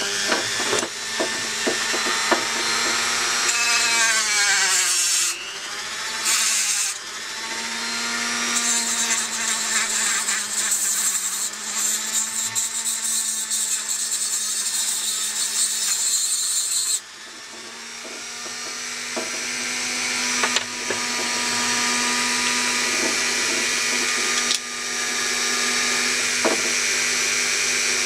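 Rotary tool with a small cut-off disc running at high speed and cutting a strip of hacksaw blade to length. The whine dips in pitch as the disc bites, and a harsh grinding hiss builds through the middle. The sound drops suddenly about two-thirds of the way through, then climbs back to a steady whine.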